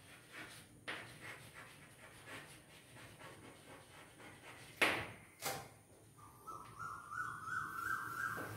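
Chalk tapping and scraping on a blackboard as words are written, with a few sharp knocks, the loudest about five seconds in. For the last two seconds a thin, wavering high tone of unclear source.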